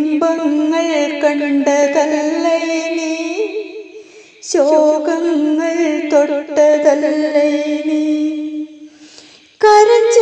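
A woman's voice singing a Malayalam poem in slow, melodic recitation (kavitha aalapanam): long held and gliding notes in three phrases, each starting strong and fading before the next.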